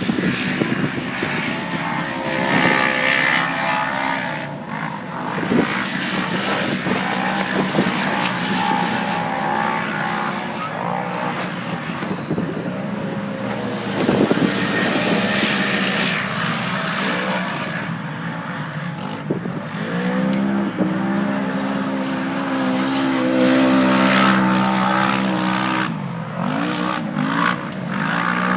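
Off-road race vehicle engines revving hard and running at speed, their pitch rising and falling as they work through the course.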